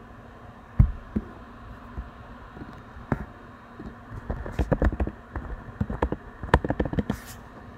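A few separate clicks, then a quick run of keystrokes on a computer keyboard from about four to seven seconds in as a short word is typed.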